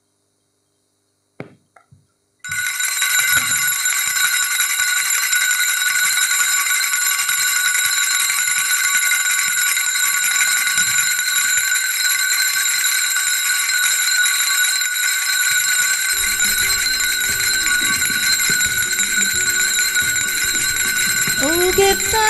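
Altar bells rung without pause for the benediction with the Blessed Sacrament: a bright, even jangle of several bell tones that starts suddenly about two seconds in, after a couple of soft clicks. A low held note joins in the last few seconds, and singing begins right at the end.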